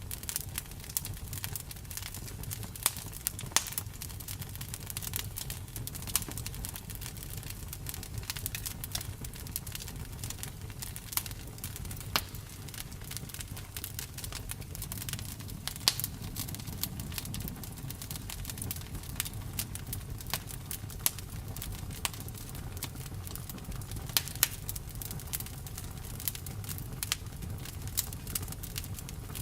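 Campfire burning: burning wood crackling with frequent sharp, irregular pops over a low, steady rumble.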